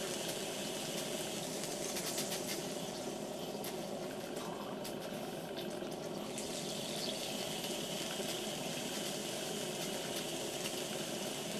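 Steady hiss of saturated steam escaping from a tiny oscillating toy steam engine (Philcraft Penny Engine), with a few faint clicks, as it is turned over by hand; the wet steam, with water carried over or condensing in the cylinder, keeps stopping the engine dead.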